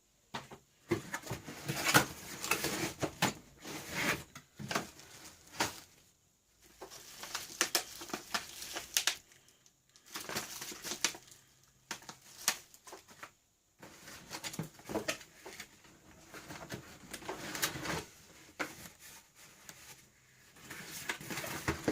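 Rustling, crinkling and knocking of cardboard and plastic packaging being handled while a boxed disc sander is unpacked, in irregular bursts with a few short pauses.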